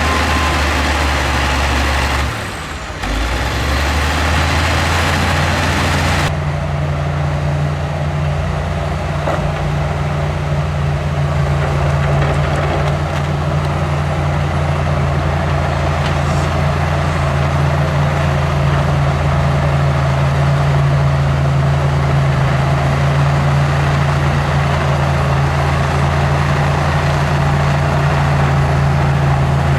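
Heavy earthmoving machine's diesel engine running with a steady low drone. The sound dips briefly about two and a half seconds in, and its tone changes a little after six seconds.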